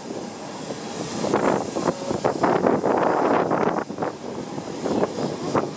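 Jet airliner's engines running on the apron: a dense, noisy rush that swells and dips, with a thin high whine above it.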